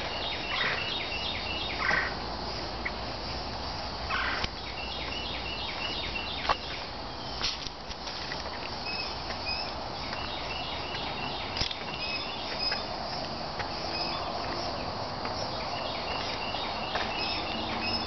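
A songbird sings a short phrase of quick, evenly repeated high chirps, again about every four to five seconds, over a steady hiss. A few footfalls knock on the wooden boardwalk.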